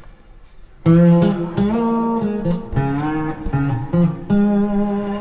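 Blues guitar intro played back through Mark Audio Alpair full-range drivers in a back-loaded horn cabinet. Plucked notes come in sharply about a second in, some of them bent upward and held.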